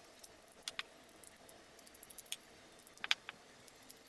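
Faint, scattered small metallic clicks and clinks of tools and carburetor parts being handled as a motorcycle carburetor is opened up, with a few clicks close together about three seconds in.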